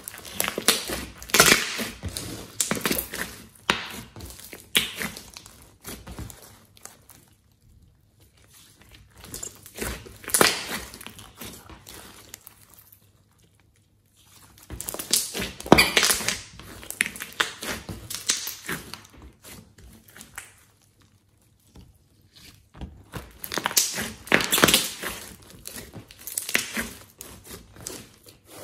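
Hands squeezing, kneading and stretching a large glossy slime: sticky squishing full of small clicks and pops. It comes in four spells with short quiet pauses between.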